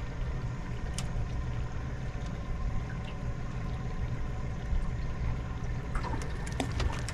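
Boat's outboard motor idling steadily, with a few light knocks about a second in and near the end.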